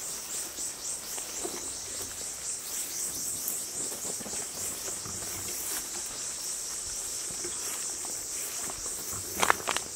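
Steady high-pitched chorus of insects, pulsing about four times a second at first and then evening out. Faint rustling of footsteps through tall grass underneath, and a few sharp knocks near the end.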